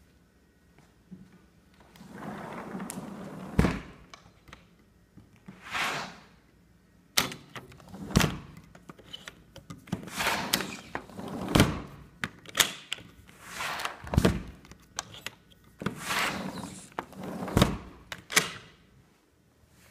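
Irregular soft rustling and dull thumps with a sharp knock every few seconds: footsteps on carpet and the rubbing and knocking of a handheld phone being carried through an empty room.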